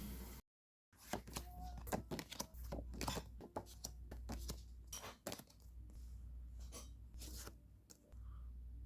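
Album packaging being torn open and handled: a quick run of sharp crackling rips and crinkles.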